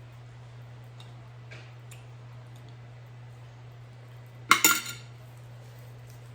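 An eating utensil clinking against a bowl: a few faint clicks, then a short, loud clatter of several strikes about four and a half seconds in. A steady low hum underneath.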